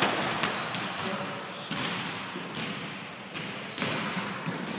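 Basketball dribbling and bouncing on a hardwood gym floor, with a few short sneaker squeaks about two seconds in.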